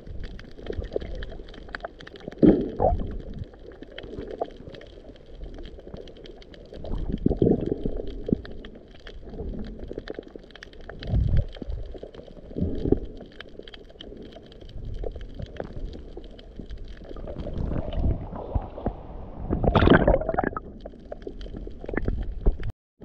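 Muffled underwater sound of a snorkeler swimming over a reef, heard through a submerged action camera. Irregular low whooshes and gurgles of water and breath come every few seconds, over a faint steady crackle. The loudest whoosh comes near the end.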